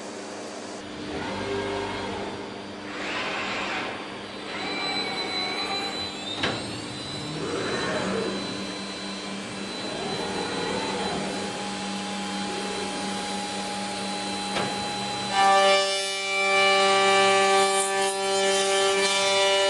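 Routech Oikos CNC machining centre working: its motors whirr in swells that rise and fall, with a faint rising whine. About three-quarters of the way through, a louder steady high whine of several tones sets in as the head's large circular saw blade runs, just before it cuts into the beam.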